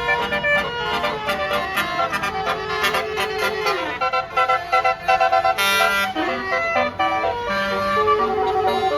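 Bus basuri (telolet) multi-trumpet air horn playing a fast melody of short, stuttering notes, with a couple of sliding tones, over a low rumble of vehicle noise.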